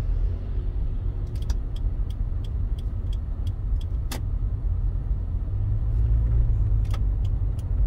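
Steady low road and engine rumble inside the cabin of a moving fourth-generation Subaru Forester. A run of light ticks, about three or four a second, comes through in the first few seconds, and single sharper clicks sound near four and seven seconds.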